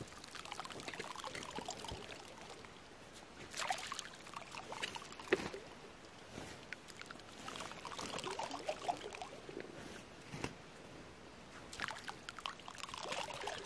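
Faint trickling and splashing of water in irregular short bursts.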